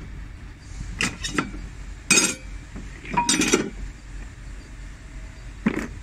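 Metal brake friction discs and steel plates from a JCB 3CX backhoe's disc brake clinking against each other as they are handled and laid down, about five separate clinks, loudest about two seconds in. The discs are burnt and hardened, the cause of the noisy brake.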